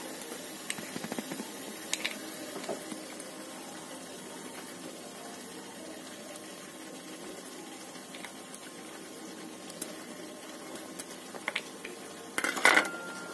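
Kitchen knife chopping almonds over a small steel bowl: scattered light clicks and taps of the blade, over a steady hiss. A louder metal clatter near the end.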